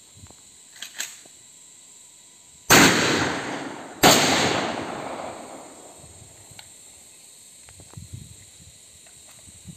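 Two rifle shots fired into the air as a ceremonial salute, just over a second apart, each followed by a long echo that dies away over a couple of seconds.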